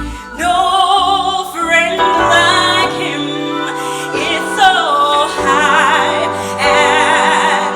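Hymn sung as a duet by a man and a woman, with long held notes in strong vibrato.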